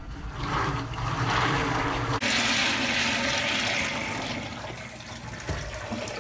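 Water splashing into a urinal, then about two seconds in a urinal's flush valve lets go with a loud rush of water that gradually fades.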